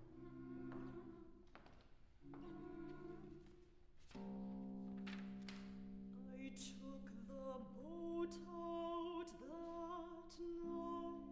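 Chamber ensemble of winds and strings playing held chords, first in two short phrases and then in one long chord from about four seconds in. A woman's operatic voice comes in over the chord about six seconds in, singing with vibrato.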